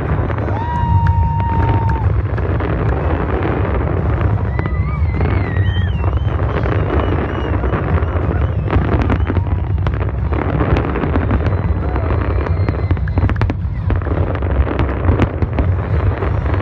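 Fireworks going off continuously: a dense low rumble of booms with many sharp bangs and crackling pops throughout.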